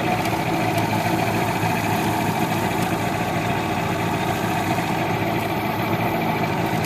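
Boat motor idling steadily.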